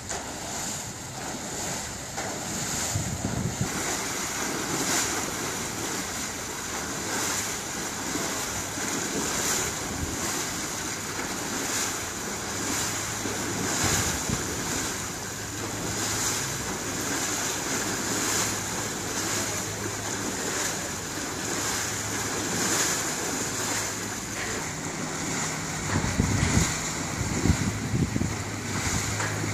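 Liberty ship's propeller turning slowly with its blades breaking the surface, churning and splashing the water at the stern. Wind buffets the microphone in gusts near the end.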